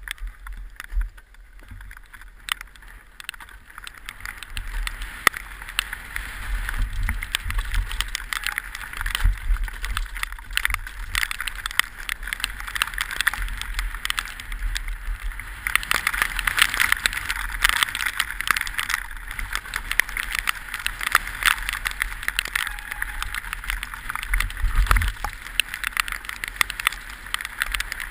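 Orange 223 downhill mountain bike descending a wet gravel trail at speed: tyres crunching and hissing over the stones, with frequent sharp rattles and clacks from the bike and a low rumbling underneath. The noise grows louder as speed builds, most of all about halfway through.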